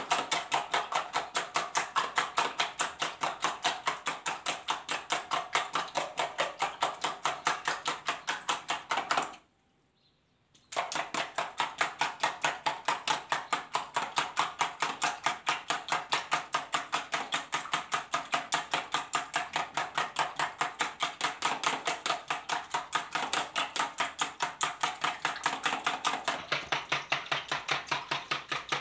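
Four raw eggs being beaten by hand with a spoon in a plastic bowl until they foam, making rapid, even strokes against the bowl at about three or four a second. The strokes stop for about a second and a half near the middle, then carry on at the same pace.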